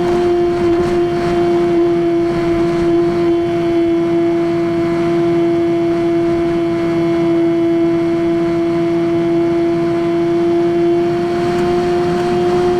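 Brushless electric motor and pusher propeller of a Skywalker X5 flying wing running at steady throttle in flight: an even, loud drone with a slight dip in pitch and a small rise near the end, over a rush of airflow.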